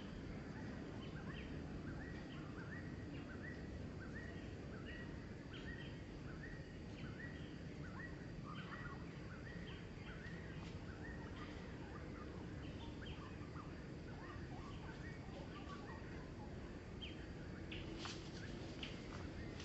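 Steady low outdoor background noise with a bird calling in a long series of short, falling chirps, about two a second. A few sharp clicks come near the end.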